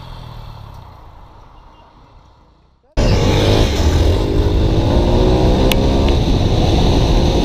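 A motorcycle engine fades away to near quiet, then about three seconds in a loud onboard sound cuts in: a Yamaha XTZ dirt bike's engine revving up, with wind buffeting the microphone as the bike is ridden at speed. A single sharp click comes near the middle of the loud part.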